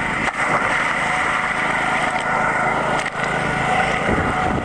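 Steady drone of an engine running, with no clear break or single loud impact.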